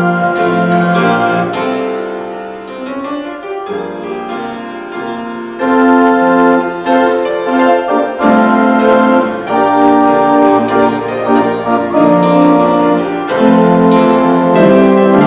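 Instrumental piano music with held chords, played as the offertory. It softens for a few seconds, then comes back louder about six seconds in.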